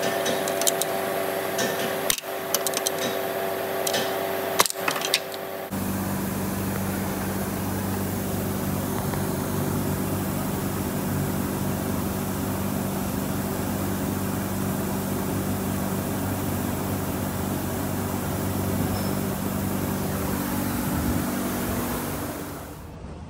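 A few seconds of sharp clicks and knocks over a steady hum, then a car engine running steadily at idle.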